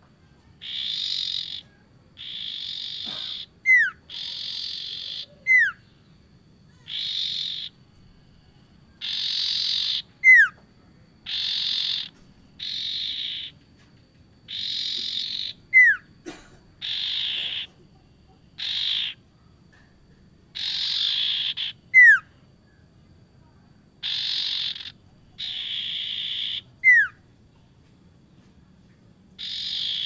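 Common iora (sirtu) calling: repeated rasping notes about a second long, mostly in pairs, several groups ending in a short, sharp downslurred whistle that is the loudest sound. The pattern comes round every few seconds, six whistles in all.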